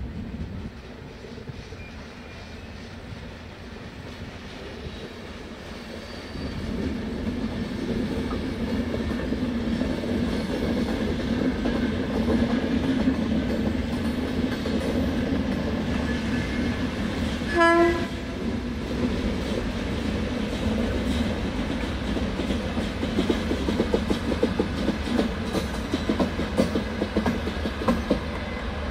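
Train running along the track, growing louder about six seconds in, with one short signal blast a little past halfway and wheels clacking over rail joints in the last few seconds.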